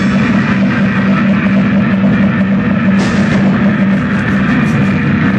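Live noise rock played loud: distorted electric guitar and drums in a dense wash of sound over a steady low drone, with a crash about three seconds in.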